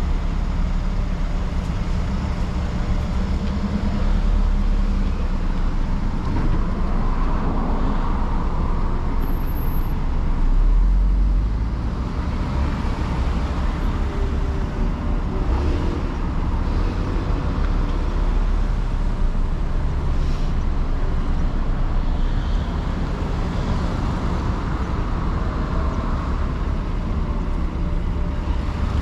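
Steady road traffic noise at a busy intersection: cars and trucks idling in the lanes alongside and vehicles driving through.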